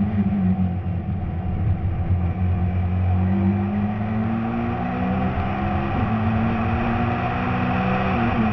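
Citroën C2 rally car's engine pulling hard at speed, its pitch climbing and then dropping at gear changes, about a second in, around six seconds in and again near the end, over a steady rush of road and wind noise.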